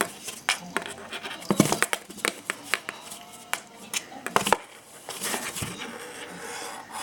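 Irregular scratching and sharp clicking handling noises in a small room, a dozen or so short clicks and scrapes.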